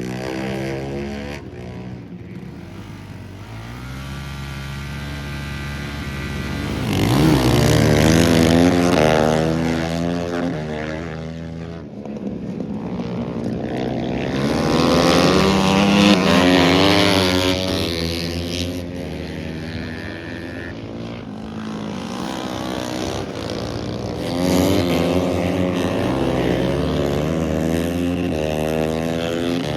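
Motorcycle engine running and revving, rising and falling in pitch and loudness as the bike accelerates and backs off, loudest about 8 and 16 seconds in.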